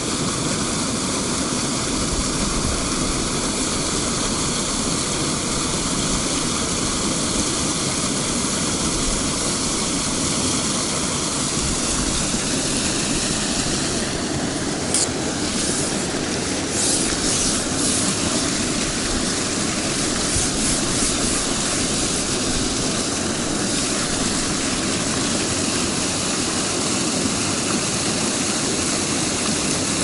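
Water pouring from culvert pipes into a small stream, a steady loud rush of falling and churning water. A few sharp clicks come through about halfway.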